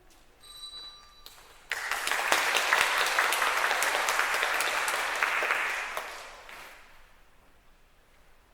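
Audience applauding for about five seconds, then fading away. Just before the clapping starts, about a second in, a brief ringing tone sounds.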